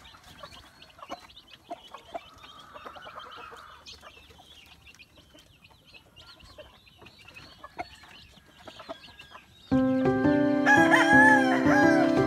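Chicks peeping softly and continually, with a rooster crowing faintly about two to four seconds in. About ten seconds in, loud instrumental music with held notes comes in suddenly.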